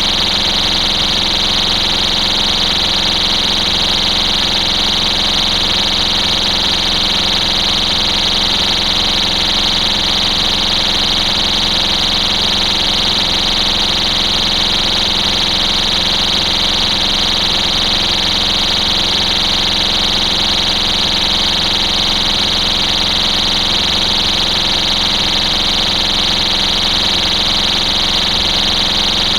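STI Stopper cover's built-in piezo horn sounding one continuous, shrill, high-pitched tone that does not change. It is the local alarm that goes off when the cover is lifted off a fire alarm pull station.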